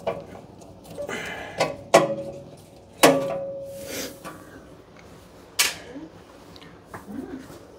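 A series of metal clanks and knocks from parts of a wood stove being handled and worked loose at its back. The loudest comes about three seconds in and rings on for about a second.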